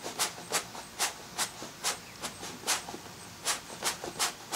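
Hand bellows puffing air in a quick run of short hisses, about three a second, blowing loose sand out of a sand-mold cavity before the mold is closed.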